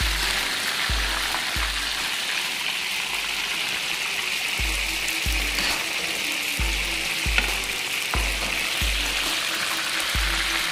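Fish fillets deep-frying in hot oil in a wok: a steady bubbling sizzle. Background music with a regular bass beat plays over it, and a single light click comes about seven seconds in.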